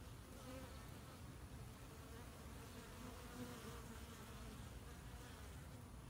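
Honeybees buzzing as they fly around a hive entrance: a faint, steady hum whose pitch wavers.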